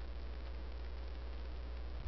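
Steady low electrical hum with a faint even hiss: background noise of the recording.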